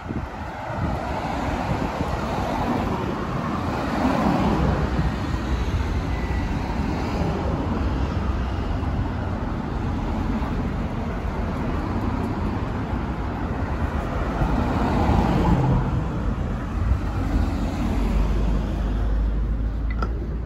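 City street traffic: cars passing one after another on the road alongside, swelling louder twice, over a steady low rumble.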